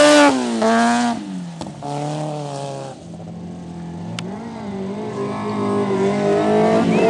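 A stock car cross racing car's engine at high revs passing close, its pitch falling as it pulls away about a second in. Then quieter engines of cars farther round the dirt track, their pitch rising and growing louder near the end.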